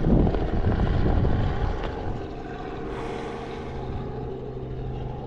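Helicopter flying nearby: a steady rotor and engine drone, loudest in the first second or two and then easing off a little.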